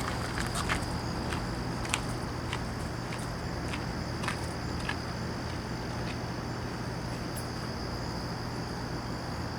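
Steady high insect drone over a low steady hum, with a dozen sharp clicks scattered through the first five seconds.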